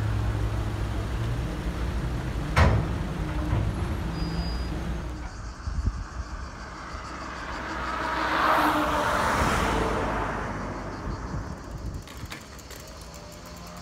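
Road traffic: a steady low rumble of vehicles on a town street with one sharp knock, then on an open road a rushing sound that swells and fades, like a vehicle passing.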